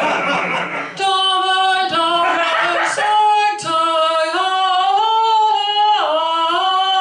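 A woman singing a mock Gregorian monk chant: long held notes on one voice that step up and down in pitch, with a brief dip and slide back up about six seconds in.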